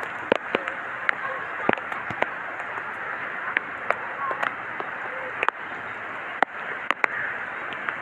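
Heavy rain falling: a steady hiss broken by sharp, irregular clicks of drops striking close by, on the phone's waterproof cover.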